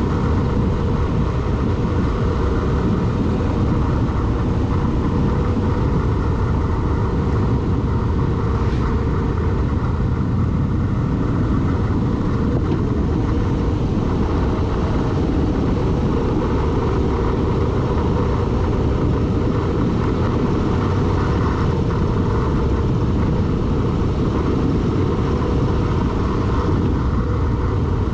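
A vehicle running at speed, its engine and road noise mixed with wind noise on a vehicle-mounted action camera, at a steady level.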